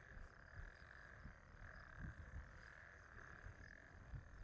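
Near silence with a faint, steady night chorus of frogs calling in a pulsing chirr. Soft low thumps come and go underneath.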